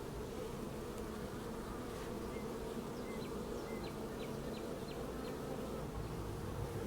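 Honeybee colony buzzing on an open hive, a steady even hum.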